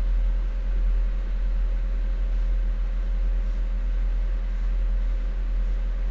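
A steady low hum with faint, constant higher tones over it, unchanging throughout.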